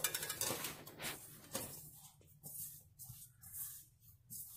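A hand rubbing and tossing ragi (finger millet) flour in a stainless steel pot: soft, irregular rustling and scratching, busiest in the first second and a half. This is the flour being mixed while water is worked in a little at a time for puttu.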